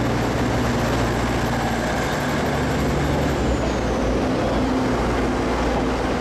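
Taiwan Railway DR1000 diesel multiple unit pulling out and passing close by at low speed: a steady diesel engine note with the rumble of the train rolling on the track. One of the low engine tones drops away about three and a half seconds in.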